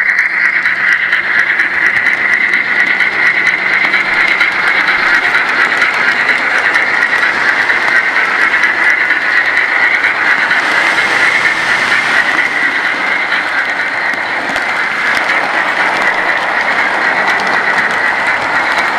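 Model train running noise: the wheels of model coaches and a locomotive rolling along the rails in a steady close-up rattle and rush.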